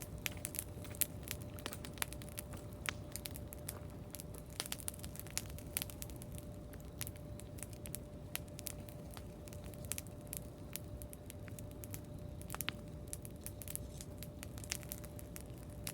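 Campfire crackling, with irregular sharp pops and snaps from the burning wood over a low steady rumble.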